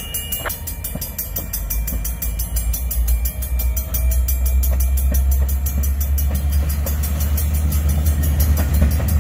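Union Pacific freight train's diesel locomotives running, a deep low rumble that builds over the first few seconds and then holds steady, with a few light knocks early on.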